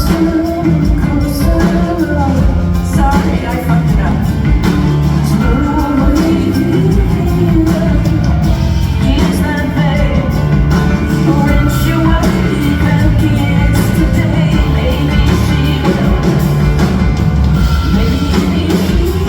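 Live rock band music: a woman singing over a band with a steady drum beat and a heavy bass line.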